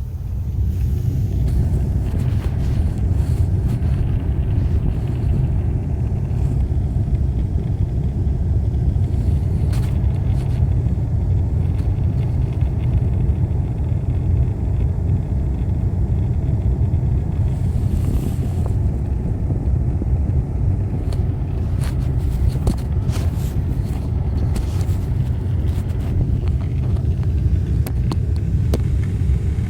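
Car heater blower fan running, a steady low rush of air with a few faint clicks.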